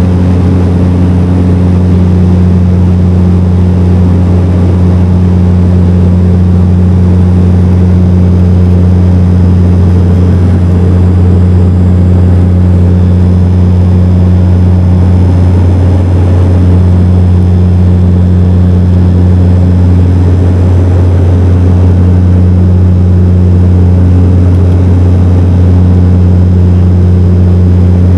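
Dash 8 Q400 turboprop engines and propellers heard from inside the cabin beside the propeller, running steadily at climb power: a loud, deep, even drone with a higher hum above it that fades out and comes back a few times.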